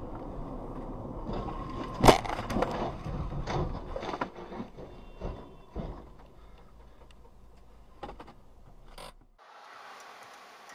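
Highway car crash heard through a dashcam: a loud bang about two seconds in, then a run of further bangs and metal scraping on the asphalt as a car tips onto its side and slides, dying away over a few seconds, over the recording car's road noise.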